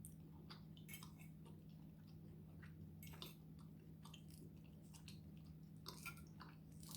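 Faint chewing: scattered soft wet mouth clicks and small crunches as a person chews food, with a steady low hum underneath.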